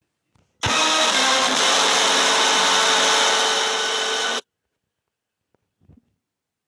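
A loud, harsh, noisy sound effect that starts suddenly just over half a second in, holds steady for almost four seconds and cuts off abruptly.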